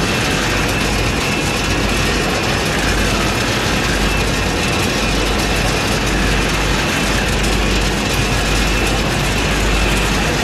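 Peanut processing line running: the inclined flighted belt conveyor and stainless-steel feed chute make a steady, dense mechanical clatter as peanuts rattle down onto the conveyor. A faint steady whine sits under the clatter.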